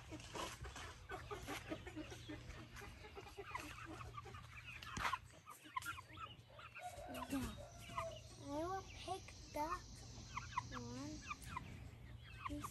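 Thai game chickens clucking, then giving a run of short calls that rise and fall in pitch in the second half, over a steady low hum.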